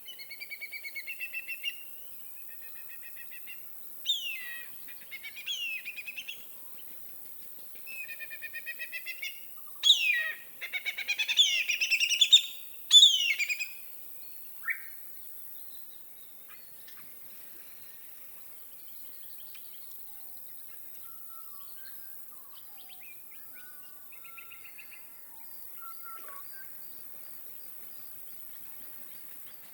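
Songbirds singing a series of rapid trilled and sweeping phrases, loudest about a third of the way in, then fading to a few faint, scattered calls.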